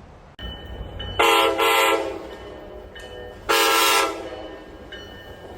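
A Tri-Rail cab car's air horn sounding three blasts: two short ones in quick succession, then a slightly longer one.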